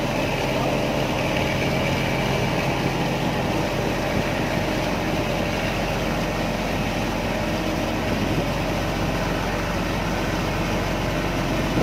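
A river vehicle ferry's engine running steadily under way: a low, even drone with a rushing noise over it.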